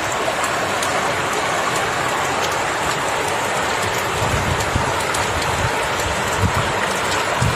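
Steady hiss of heavy water, with faint fine ticks like drops and low thumps now and then in the second half.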